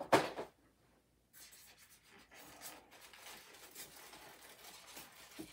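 A single knock at the start, then a few seconds of steady scratching and rustling as cardboard packaging and model-train pieces are handled and slid about.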